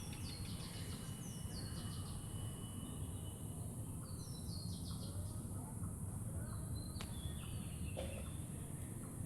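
Small birds calling in short runs of quick, high chirps that fall in pitch, over a steady low background rumble and a faint steady high hiss.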